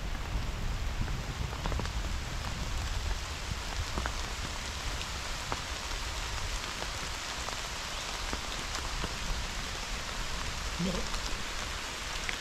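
Steady rain falling in a hazel wood, with many separate drops ticking close by.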